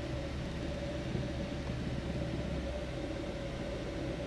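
3D printer running while printing, a steady low hum with a constant mid-pitched whine over a light hiss.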